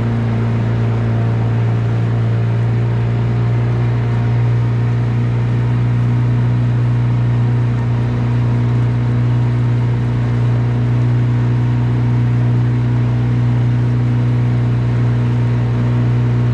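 Boat's outboard motor running steadily at cruising speed, a constant engine drone with the rush of wind and water from the hull cutting through the lake.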